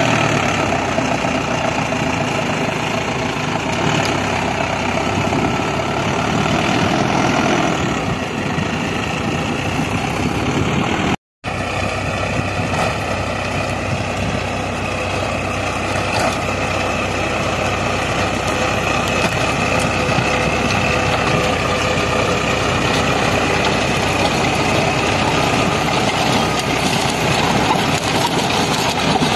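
Mahindra Arjun 605 DI tractor's diesel engine running steadily under load while working soil, first pulling a plough and then driving a rotavator. The sound cuts out for a moment about eleven seconds in.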